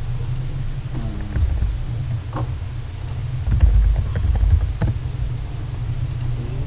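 Steady low hum with a few low thumps around the middle and a few sharp clicks.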